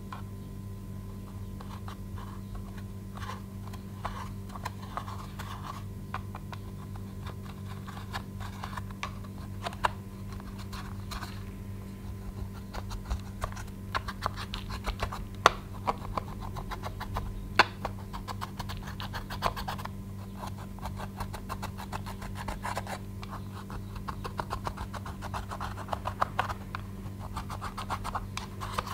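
A wooden stick scratching and crumbling pressed eyeshadow in a plastic palette: dry scraping strokes with a few sharp clicks of the stick against the pans, getting busier in the second half, over a steady low hum.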